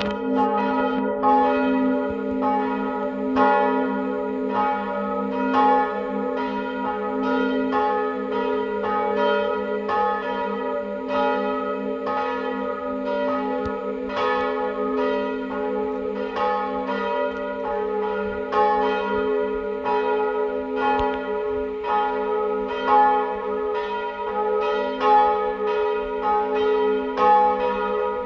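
Full peal of the village church bells of Baldenheim: several swinging bells striking in an uneven, overlapping pattern about twice a second over a steady ringing hum.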